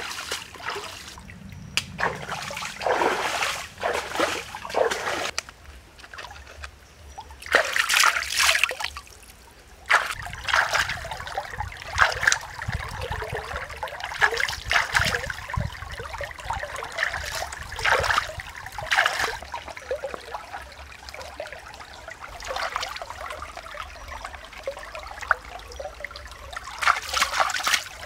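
Hands splashing and swishing in shallow stream water while rinsing greens and prawns, in irregular bursts over the steady trickle of the stream.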